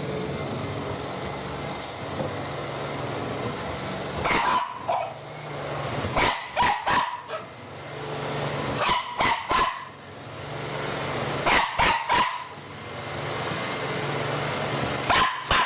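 Small Shiba Inu (mame-shiba) barking at a vacuum cleaner, short sharp barks in clusters of two or three every few seconds, over the steady whirring hum of the vacuum's motor.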